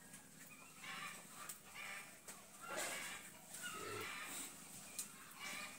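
Chickens clucking faintly and on and off in the background.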